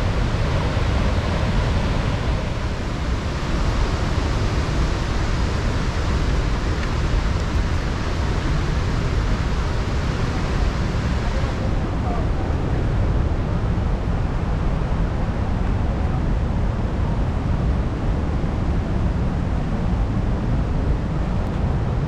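Steady rush of a large waterfall, heaviest in the low end. The higher hiss drops off about halfway through.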